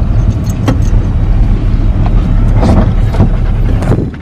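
Jeep engine running with a steady low rumble, heard from inside the cabin, with a few short clicks and knocks through it.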